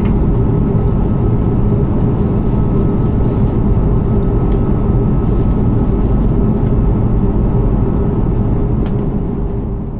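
Steady drone of an Airbus A340-600's four Rolls-Royce Trent 500 engines and rushing air heard inside the cabin in flight, a low rumble with a steady hum on top, beginning to fade out at the very end.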